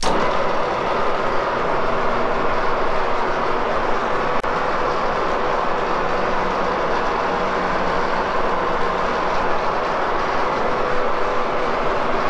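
Värnamo horizontal milling machine running, a steady mechanical hum and rattle of its motor and gearing that starts suddenly and keeps an even level.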